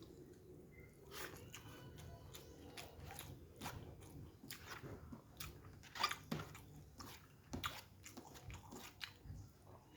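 Close-up chewing and mouth smacking of a person eating, with irregular wet clicks and small crunches, the sharpest about six seconds in.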